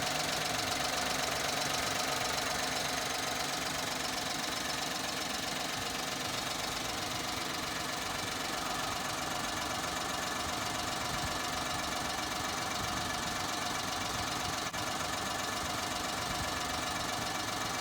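Nissan Pino's small three-cylinder engine running steadily after its melted spark plug's thread hole has been repaired, with one brief click near the end.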